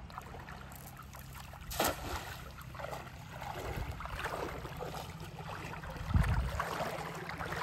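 Shallow river water sloshing and splashing as someone wades through it, with a sharper splash about two seconds in and a low thud near the six-second mark.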